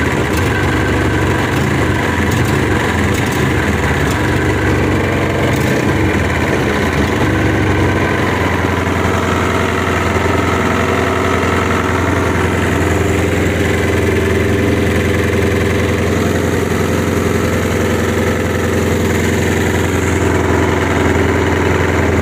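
Boat-mounted Honda GX690 V-twin four-stroke petrol engine running steadily on test.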